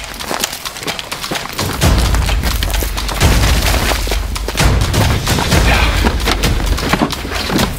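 Hurried footsteps through dry scrub, with branches rustling, scraping and snapping against clothing and a handheld camera, and heavy thumps of camera handling. The noise is irregular and close to the microphone.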